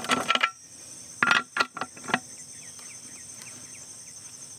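Steady high chirring of crickets, with a few sharp metal clinks in the first two seconds as steel hardware and tools are handled on the mower's blade pan.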